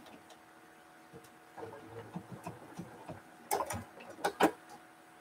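A few light clicks and taps from handling at a sewing table, scattered through the middle, with two sharper clicks about three and a half and four and a half seconds in.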